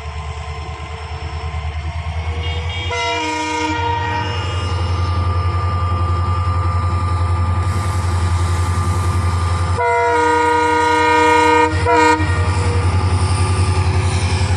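Indian Railways diesel locomotive approaching and passing, its engine a steady pulsing rumble that grows louder as it nears. It sounds its horn three times: a blast about three seconds in, a longer one of about two seconds near ten seconds, and a quick toot just after.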